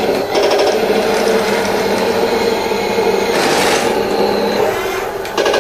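Heng Long Challenger 2 RC tank running: its sound unit plays a simulated tank engine through a small speaker, mixed with the whir of the steel gearbox and the clatter of metal tracks as the tank pivots in place.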